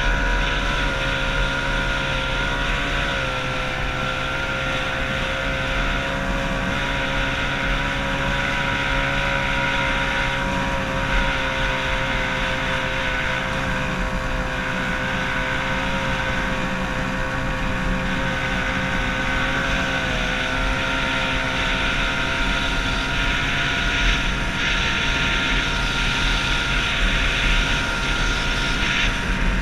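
Yamato 102 stock racing outboard on a 1969 Marchetti hydroplane, running steadily under way, its pitch dipping briefly twice. Wind and water noise mix in on the onboard microphone.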